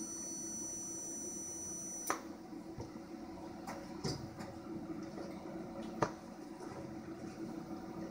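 TIG welding arc from a 200P AC/DC inverter welder fusion-tacking 316 stainless steel, heard as a faint, thin, high-pitched whine of several steady tones that stops with a click about two seconds in. After that there is only a low steady hum and a few small clicks.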